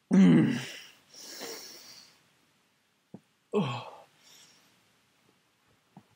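A man's wordless vocal reactions while eating a sour gummy worm. There is a loud groan falling in pitch, then a long breathy sigh, and a second, shorter falling groan about three and a half seconds in.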